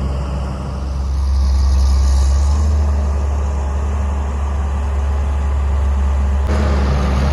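Diesel engine of a 1988 John Deere 690D excavator running steadily while working, getting louder about a second in. A single sharp knock about six and a half seconds in.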